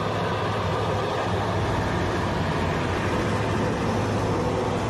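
Steady, even drone of a heavy engine with road noise as a giant mining haul truck drives along a haul road.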